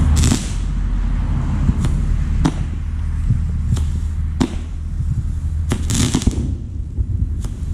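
Consumer aerial fireworks bursting overhead: about six sharp bangs a second or two apart, two of them followed by a brief hiss, over a steady low rumble.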